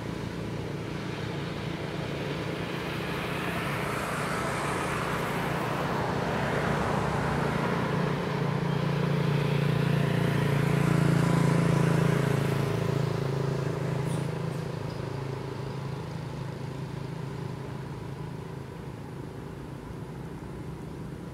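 A motor vehicle's engine running steadily, growing louder to a peak about halfway through and then fading away as it passes by.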